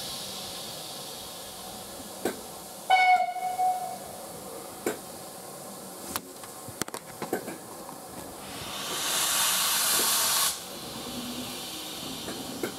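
A steam locomotive's whistle gives one short blast about three seconds in, the loudest sound here. About eight and a half seconds in, a hiss of escaping steam swells for about two seconds and cuts off suddenly. A few scattered knocks sound in between.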